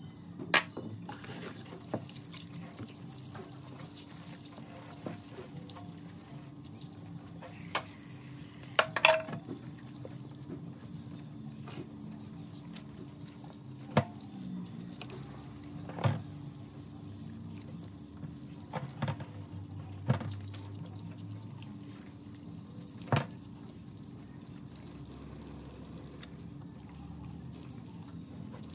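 A thin stream of tap water runs into a plastic tub in a stainless steel sink. Scattered sharp knocks and clatters come from handling raw chicken pieces, a knife and a plastic colander in the sink.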